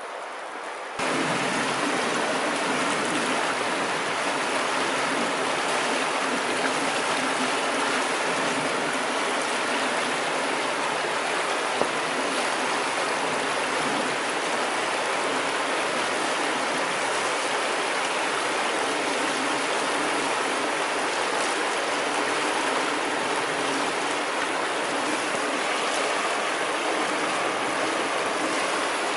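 Savinja river water flowing in a steady, even rush, stepping up in loudness about a second in.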